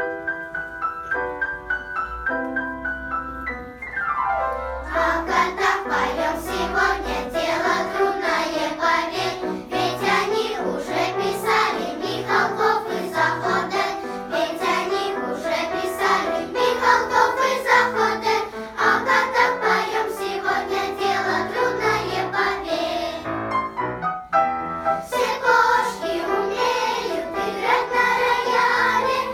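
Children's choir singing a song with instrumental accompaniment, after a short instrumental introduction. The singing stops briefly about 24 seconds in, then resumes.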